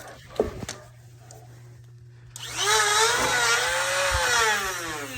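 Corded electric angle grinder switched on about two and a half seconds in: its whine rises quickly as it spins up, holds briefly, then falls as it winds down after the trigger is let go. A couple of light clicks come before it starts.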